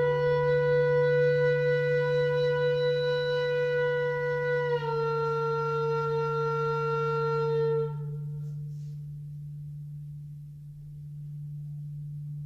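Flute playing one long held note that drops slightly in pitch about five seconds in, then stops about eight seconds in. Under it a crystal singing bowl gives a steady low drone that carries on alone after the flute stops.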